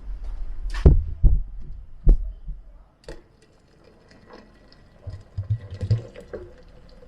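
Hard plastic blender pitcher and lid being handled on the base: several sharp knocks over a low hum that fades out about two and a half seconds in, then a cluster of lighter clicks and rattles about five to six seconds in.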